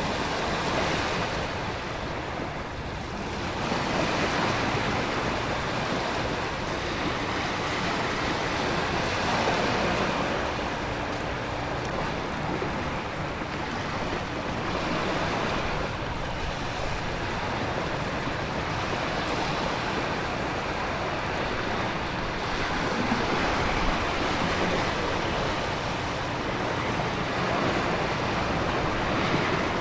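Hurricane storm ambience: heavy rain and wind over ocean surf, in a dense steady wash that swells and eases every few seconds as waves surge.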